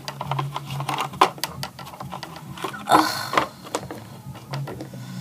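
Small plastic toy figures and accessories being handled and set down on a wooden floor: quick irregular clicks and taps, with a short rustling scrape about three seconds in, over a steady low hum.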